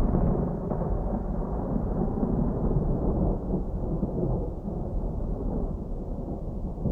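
Distant thunder rolling in a long low rumble, strongest at the start and slowly tailing off.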